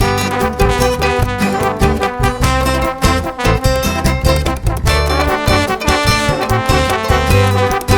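Upbeat background music with brass instruments over a steady beat.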